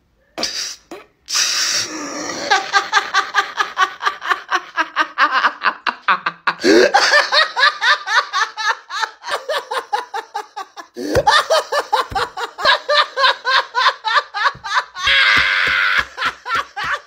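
A man laughing loudly and hard in long runs of rapid ha-ha pulses, about four to five a second, broken by a couple of breathy, wheezing stretches.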